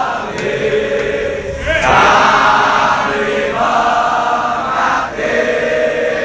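A crowd of men chanting a supporters' song in unison, holding each sung note before shifting to the next. The chant swells louder about two seconds in.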